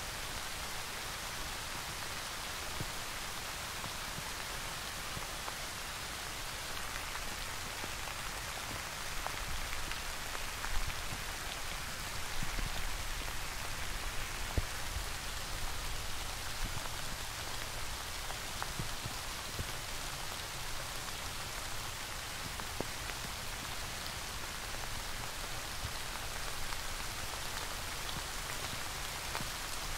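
Steady rain falling: an even hiss of drops, with a few louder drop hits near the middle.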